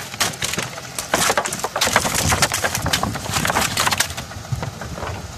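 Rapid, irregular knocking and slapping on wood for about four seconds, then fewer knocks: a freshly landed fish thrashing against the boards of a wooden fish box on a boat deck.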